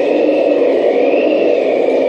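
Wind sound effect played back for the stage: a steady rushing noise with a thin whistle rising and falling in pitch.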